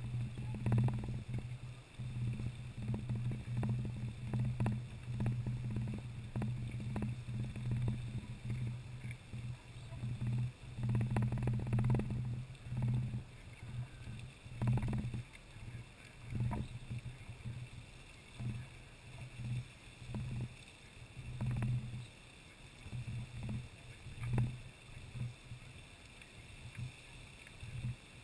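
Lady Knox geyser erupting: its water column rushing and splashing from the cone, with a low rumble that swells and falls in uneven surges.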